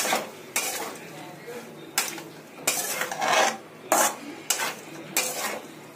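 Flat metal spatula scraping and clanking against a metal kadhai as a wet long-bean and potato curry is stirred, in a string of uneven strokes about every half second to second.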